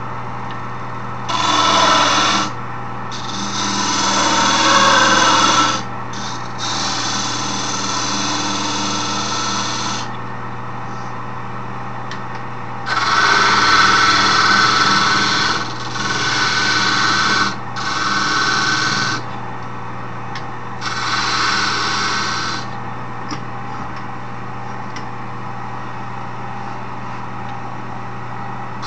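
Wood lathe running with a steady motor hum, while a turning tool is pressed into the spinning wood in about seven cutting passes of one to three seconds each, each pass a loud rasping hiss that stops when the tool is lifted.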